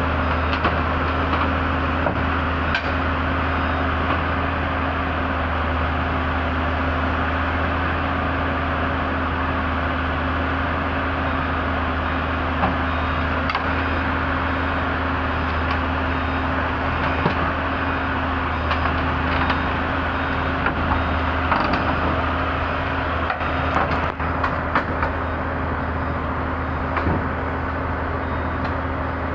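Heavy diesel engine running steadily with a low, even hum, with a few light knocks near the end.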